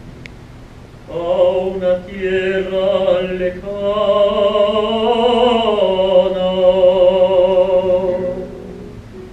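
Operatic tenor voice singing one long held phrase with wide vibrato over a low, steady musical accompaniment. The voice comes in about a second in, rises in pitch near the middle, and fades just before the end.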